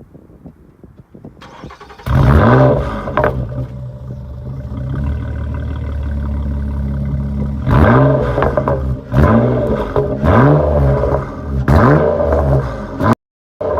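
2010 Nissan Maxima's 3.5-litre V6 with a muffler delete being started: the starter cranks briefly and the engine catches with a flare of revs about two seconds in, then settles to a steady idle. From about eight seconds in it is blipped several times, each rev rising and falling quickly.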